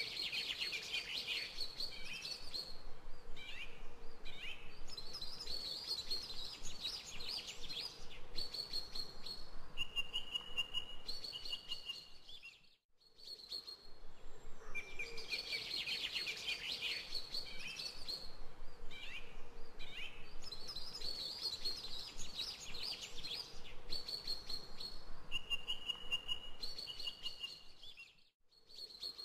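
Birds chirping and singing, a looped recording: the same stretch of birdsong plays twice, each pass ending with a brief drop to silence.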